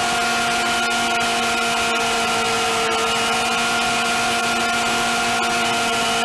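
Kawasaki Bayou ATV's single-cylinder four-stroke engine running at a steady speed, its pitch holding constant, over a steady hiss.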